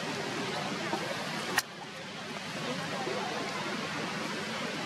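Steady hissing background noise, with one sharp click about one and a half seconds in.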